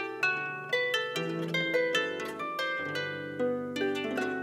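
Harp playing a slow, flowing accompaniment. Plucked notes ring on over one another at about three a second.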